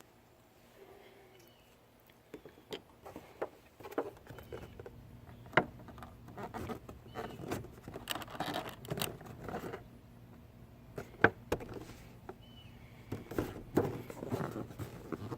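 Cardboard and plastic toy packaging being handled and opened, with rustling and a scatter of sharp clicks and taps, starting about two seconds in.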